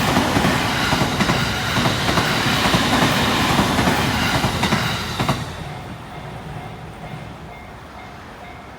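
A JR 209 series electric train passes over the level crossing, its wheels clattering over the rail joints. The train noise falls away suddenly about five seconds in, leaving the crossing's warning bell ringing faintly in an even, repeating rhythm.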